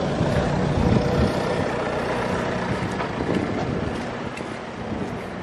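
Wind rushing on the microphone over a motor vehicle's engine running steadily, the engine fading after about two seconds.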